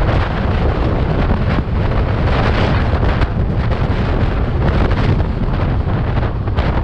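Steady wind noise buffeting the microphone of a scooter rider cruising at about 70 km/h, a dense low rumble with no breaks.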